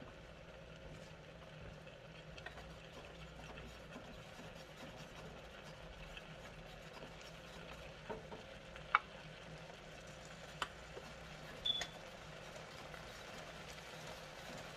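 Diced peppers, onions and sliced sausage sautéing in a pan: a faint, steady sizzle with light crackling. A few sharp clicks a little past halfway, likely the wooden spoon knocking against the pan.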